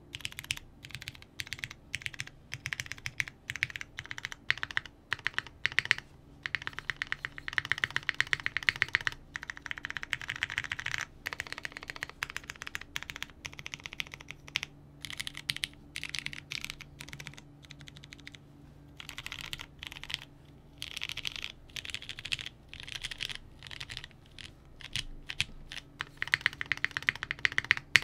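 Typing on a Lin Whale tenkeyless mechanical keyboard with lubed vintage Cherry MX Brown switches in a polycarbonate half plate, under GMK keycaps. The keystrokes come in fast flurries with short pauses, and their sound is soft and creamy.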